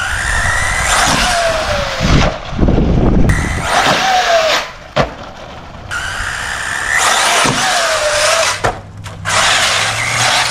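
Arrma Typhon 6S RC buggy's brushless motor whining in about four throttle bursts, the whine falling in pitch as each burst eases off, with a sharp tick about five seconds in.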